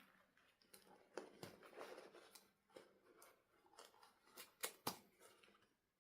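Faint handling sounds: scattered light clicks and soft rustles, with two sharper clicks close together near the end.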